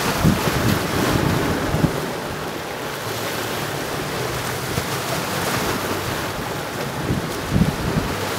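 Wind buffeting the microphone over the steady wash of small sea waves. The buffeting is strongest in the first two seconds and again near the end.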